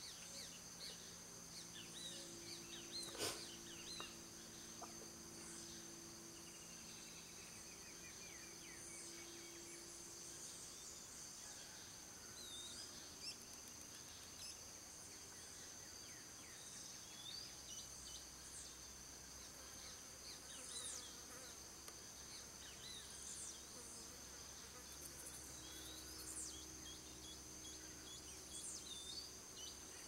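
Faint outdoor background of a steady, high-pitched insect drone, with scattered short bird chirps and a faint low hum underneath.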